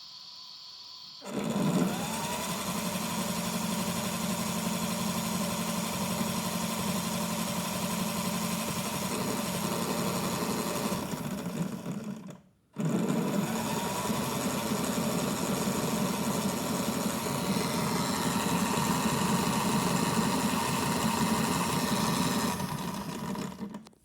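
Small electric motor of an AEG ÖKO Lavamat toy washing machine turning its empty drum, run dry without water. It starts with a rising whine about a second in, runs steadily, stops for a moment about halfway, then starts again with the same rising whine and runs until just before the end.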